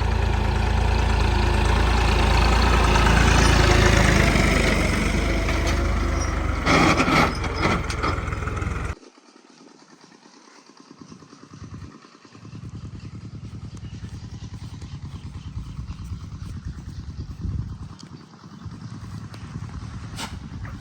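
Diesel engine running loud and close, then, after an abrupt cut about nine seconds in, a quieter engine chugging steadily with an even pulse.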